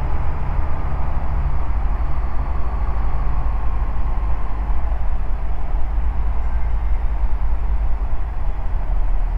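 Ikarus C42B microlight's engine running steadily, with a faint tone easing slightly down in pitch over the first few seconds.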